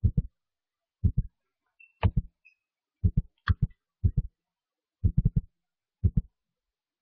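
Deep low thumps in quick clusters of two to four, about once a second, with silence between. A brief higher sound cuts in about two seconds and three and a half seconds in.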